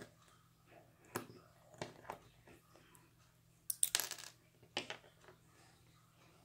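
Small metal clicks and scrapes as a pin pries the steel shield off a small ball bearing, with a louder, quick run of rattling clicks about four seconds in as the shield comes free.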